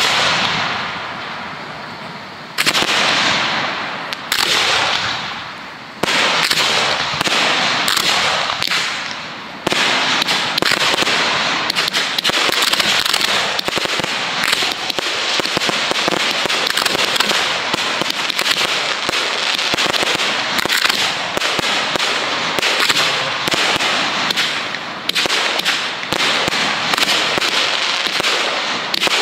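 A professional fireworks display going off: loud shell bursts a few seconds apart, each trailing off over a second or two, then from about ten seconds in a dense, continuous barrage of bangs and crackling.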